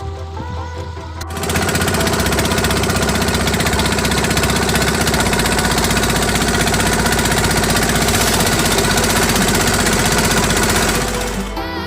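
Fishing reel drag running, a loud, fast, even stream of clicks lasting about ten seconds, starting a second in and stopping near the end. This is the sign of line being pulled off the reel, as when a hooked fish runs.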